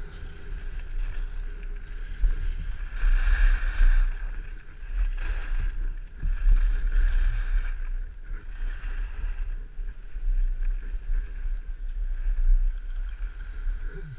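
Wind buffeting a helmet-mounted camera's microphone during a downhill ski run, with skis hissing and scraping over packed snow in surges on the turns.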